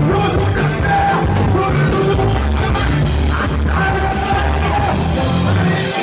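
Live praise-and-worship band playing loudly, with a man singing into a microphone over a drum kit.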